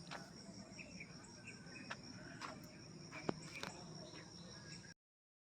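Crickets trilling in a steady, high, even drone, with a few faint clicks, the sharpest about three seconds in. The sound cuts off abruptly just before the end.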